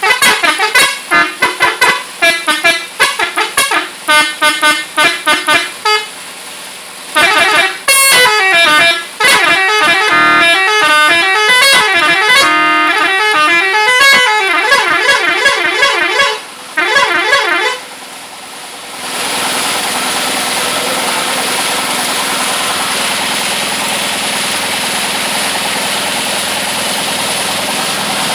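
Telolet multi-tone horn fitted to an automatic scooter playing tunes: quick runs of short stepped notes, then longer gliding melodic phrases, stopping about 18 seconds in. After that a steady motor runs.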